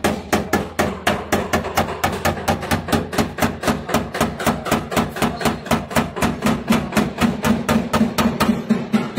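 A paintless dent repair tap-down hammer knocking down high spots on a car's sheet-metal fender: quick, even taps, about five a second, with no pause.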